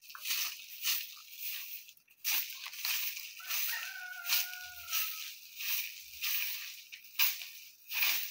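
Short twig broom sweeping dry bare earth: repeated scratchy swishes, a little more than one a second. A drawn-out call sounds faintly for about a second and a half around four seconds in.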